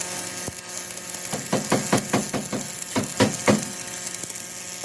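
A quick run of about ten strokes from a workshop hand tool, about four a second, the last few the loudest, over a steady workshop hum.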